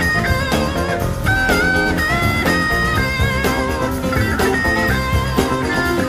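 Background music: a guitar-led track with held, bending melody notes over a steady drum beat.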